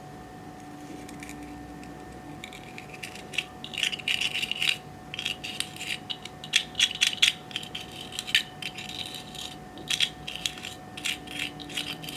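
Clear slime being worked by hand, giving dense clusters of sticky clicks and pops, starting a couple of seconds in.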